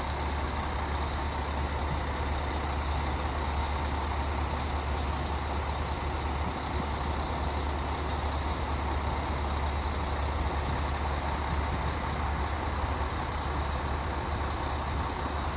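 Large cruise ship's machinery running while berthed, a steady low drone with a few faint steady tones above it.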